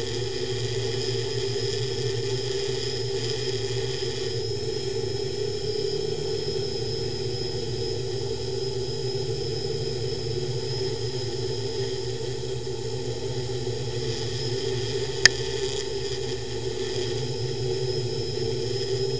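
Eight electric motors and propellers of a DIY octocopter hovering, heard from the camera on its frame: a steady whirring hum with a high whine above it. Late on, a single sharp click.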